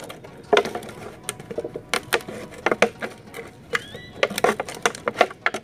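A knife cutting into an empty plastic gallon jug: a string of irregular sharp crackles and pops as the stiff plastic gives and flexes.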